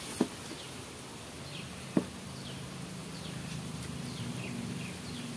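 An insect buzzing steadily from about two seconds in, over repeated short, falling bird chirps. Two sharp clicks, the loudest sounds, come just after the start and about two seconds in.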